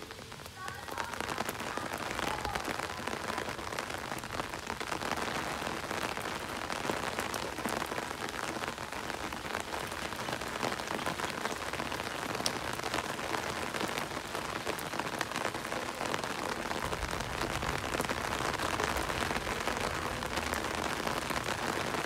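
Steady rain falling on a wet garden, its paved paths and puddles: an even hiss of rain with many separate drops splashing close by.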